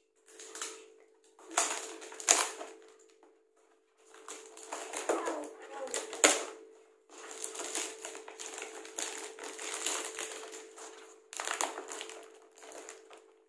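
Packaging of a Cadbury Celebrations chocolate box crinkling and rustling as it is torn open by hand. It comes in irregular bursts with sharp crackles, the loudest about six seconds in.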